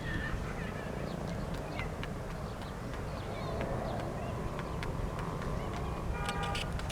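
Outdoor ambience: a steady low rumble with scattered short bird chirps and clicks, and a brief pitched call near the end.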